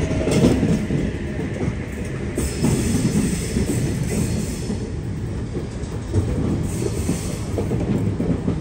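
Sydney Trains H set (Oscar) double-deck electric train moving slowly along the platform, its wheels rumbling and clicking on the rails, with two spells of hiss.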